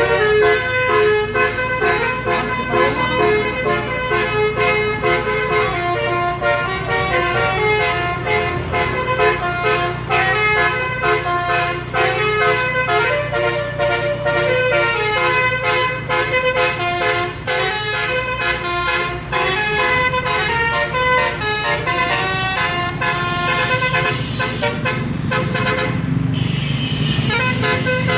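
Basuri telolet multi-tone musical air horn on an Eti Trans bus, playing a tune: loud held notes that step up and down in pitch, over steady vehicle engine noise. A brief rush of noise about two seconds before the end.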